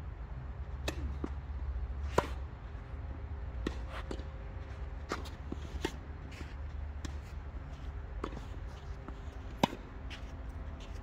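Tennis ball being struck by rackets and bouncing on the court during a singles rally: a string of sharp pops about a second apart, the loudest about two seconds in and near the end, over a low steady rumble.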